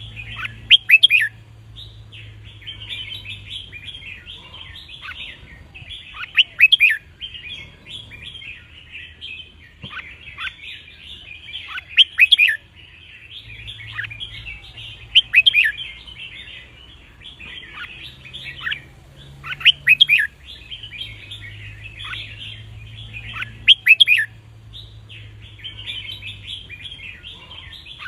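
Red-whiskered bulbuls singing: a loud, clear phrase comes about every four seconds over steady softer chattering, with a faint low hum underneath.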